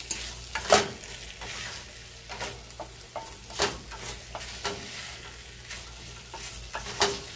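A spoon stirring diced potatoes as they fry in a white enamel pot, scraping through them with several sharp knocks against the pot, over a soft steady sizzle.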